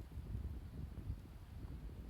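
Wind buffeting the microphone: a low, uneven rumble with no distinct mechanical sound.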